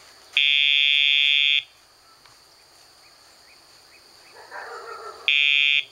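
Electronic sound box buzzing in time with a Dogtra e-collar's pager button, signalling that the dog is being paged to turn. There is a steady buzz of a bit over a second, then a second, shorter buzz near the end.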